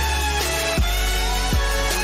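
Electronic intro music: sustained synth chords over a deep, steady bass, punctuated by a couple of punchy drum hits.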